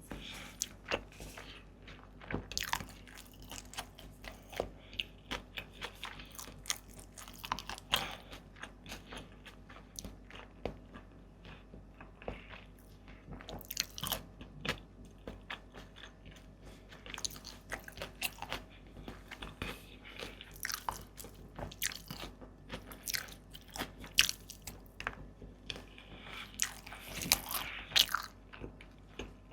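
Close-miked eating: repeated bites, crunches and chewing, with irregular sharp crackles, from a person eating boiled eggs and tamarind.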